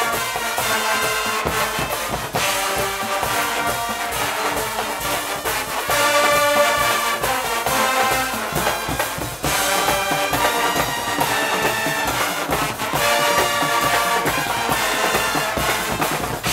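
A Guggenmusik carnival band playing: massed brass, trumpets and trombones, over drums, continuous, with short breaks between phrases.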